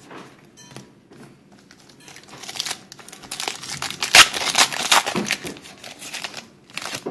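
Trading-card pack wrapper being torn open and crinkled by hand. After a couple of quiet seconds with faint card-handling clicks, a dense crinkling starts about two seconds in and is loudest around the middle.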